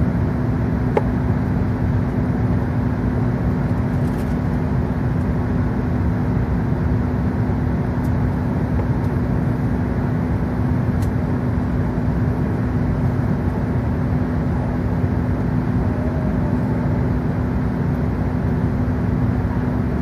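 Cabin noise inside an Airbus A380 taxiing: its Rolls-Royce Trent 900 engines running steadily at low taxi thrust under a constant hum with one steady low tone.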